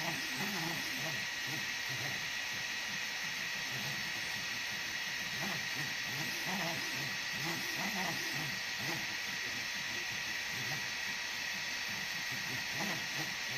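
EasyThreed K10 mini 3D printer printing: a steady fan hiss with a high tone, and the stepper motors whirring in short moves of changing pitch.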